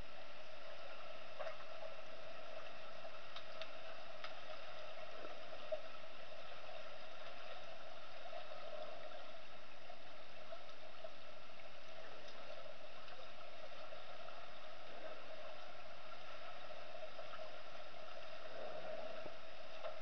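Steady underwater hum in a swimming pool, heard with the microphone submerged, with a few faint clicks.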